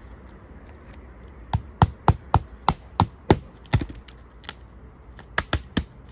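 Hammer driving roofing nails by hand through an old 3-tab asphalt shingle: a quick run of about eight sharp strikes, then a lone strike and three more near the end.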